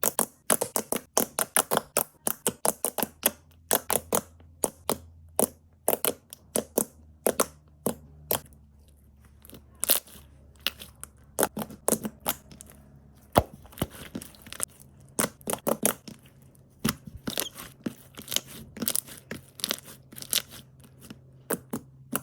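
Slime being pressed and worked by hand, giving off irregular sharp clicks and crackles, several a second.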